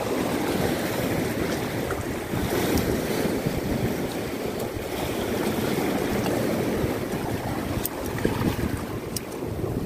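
Sea surf washing steadily over rocks and through a rock pool, with wind buffeting the microphone.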